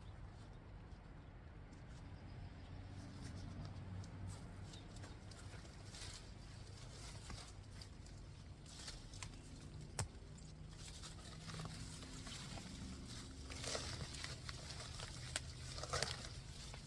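Faint rustling and handling noises from pulling at a potato plant and its fabric grow bag, with scattered light clicks and one sharper knock about halfway through; the rustling grows louder and busier near the end.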